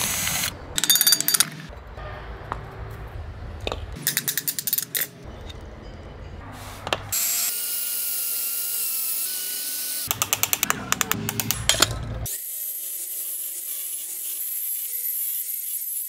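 Cordless drill working on a ceiling fan motor's metal housing. It gives several short bursts of rapid clicking while driving the cover screws, and a steady whir in the middle while a bit drills through the cast cover. From a little past two-thirds in comes a steady high hiss, an angle grinder cutting at the stator.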